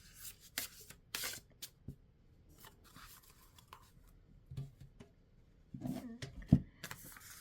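Oracle cards being handled and shuffled: scattered short rustles and slides of card stock, with a denser rustle near the end and one sharp knock about six and a half seconds in.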